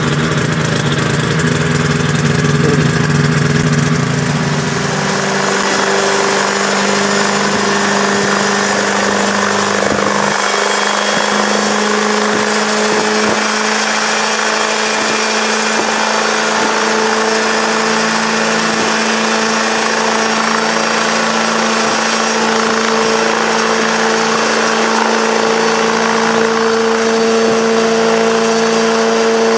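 Helitrike microlight helicopter's engine running with its contra-rotating rotors turning. The engine speeds up about five seconds in and again about eleven seconds in, then holds a steady, higher pitch.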